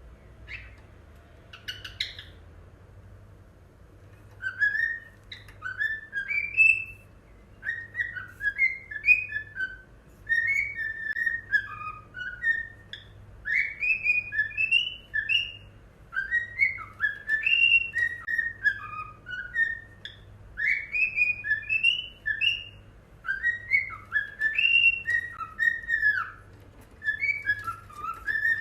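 Cockatiel whistling its song: phrase after phrase of short whistled notes that slide up and down, with brief pauses between phrases, starting about four seconds in. A few sharp clicks come before it.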